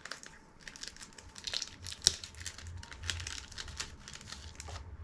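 Plastic wrapping on a toy card pack crinkling and tearing as it is opened by hand: irregular crackles with one sharp snap about two seconds in.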